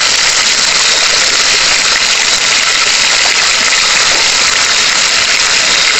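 Shrimp deep-frying in hot oil in a wok, a steady sizzling hiss.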